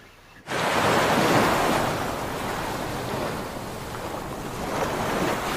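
Waves washing in on a shore: a steady rushing surf that starts abruptly about half a second in.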